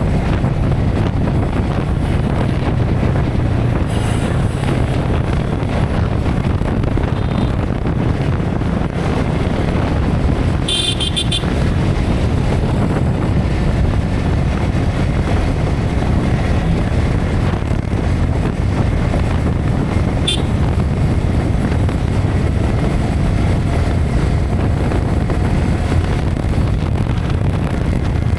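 Wind buffeting an action camera's built-in microphone while a Yamaha R15 V3's single-cylinder engine runs underneath at riding speed. A brief high-pitched sound cuts through about a third of the way in.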